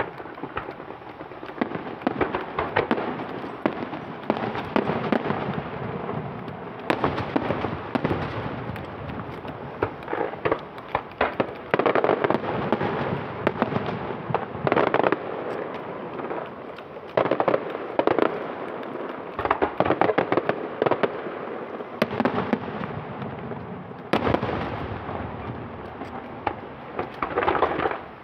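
Fireworks show: a dense, continuous run of bangs and crackling from aerial shells bursting, coming in louder waves of rapid reports.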